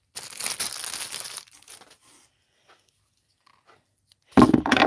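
Thin plastic packaging crinkling and rustling as a sheathed kitchen knife is worked out of it, for about a second and a half. Then it goes quiet apart from a few faint ticks, and a loud thump comes near the end.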